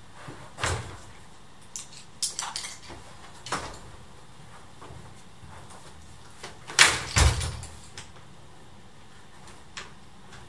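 A TRAK children's folding wheelchair being unfolded: a handful of sharp clicks and clunks from the metal frame and backrest as they are opened out and locked, the loudest pair about seven seconds in.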